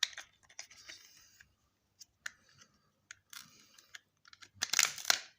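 Light plastic clicks and rattles from handling the opened casing and small circuit board of a smart meter, with a louder burst of handling noise near the end.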